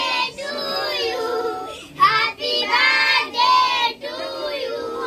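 A group of children singing a birthday song together, in sung phrases with short breaks between them.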